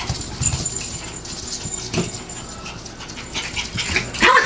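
Puppies scampering and tussling on a hardwood floor, claws clicking and scuffling, with a short whimper from one of them near the end.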